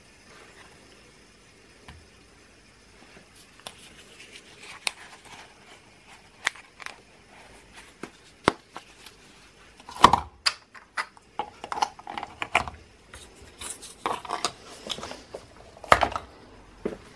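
A 3D-printed tri-spinner fidget spinner with a 608 ball bearing spinning on a wooden tabletop. There is a faint steady whir at first, then clicks and knocks on the wood that come more and more often, the loudest about ten and sixteen seconds in.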